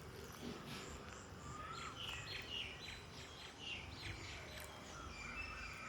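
Several wild birds chirping and calling in short, quick notes, busiest in the middle, with a short whistle that rises and falls early on, over a steady low background rumble.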